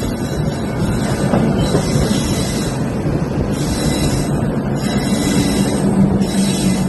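Indian Railways passenger train running, a steady rumbling clatter of the moving train.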